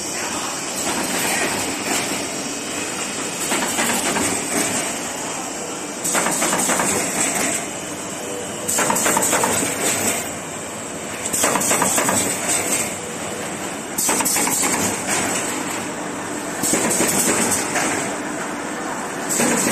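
Corrugated paperboard partition assembler machine running: a steady mechanical clatter and hiss that grows louder for a second or so about every two and a half seconds.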